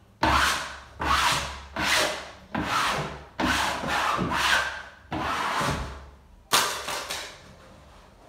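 Freshly hung wallpaper being smoothed onto the wall with a wallpaper smoother: about eight firm sweeping strokes, roughly one a second, each starting sharply and tailing off, the last about six and a half seconds in.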